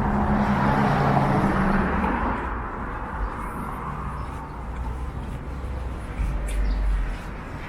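A vehicle passes close by on the street, loudest in the first two seconds and then fading. Low wind rumble on the microphone follows near the end.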